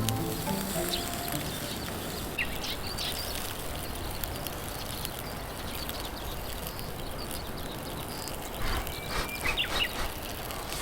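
Small birds chirping now and then over a steady outdoor hiss, with a quick cluster of clicks and pops near the end.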